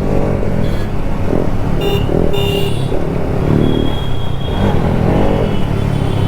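Bajaj Pulsar RS200's single-cylinder engine running under way, with wind rushing over the helmet-mounted microphone.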